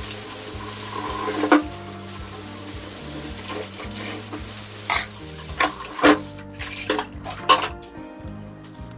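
Tap water running into a kitchen sink while dishes are washed by hand, with sharp clinks and clanks of dishes and utensils knocking together, once early and then several in quick succession past the middle. The running water stops near the end.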